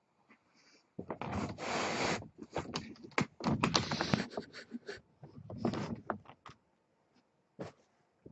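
Young kittens crawling over a plush blanket: the fabric rustles and scrapes in several bursts, with small clicks of claws catching, starting about a second in and dying away after six seconds.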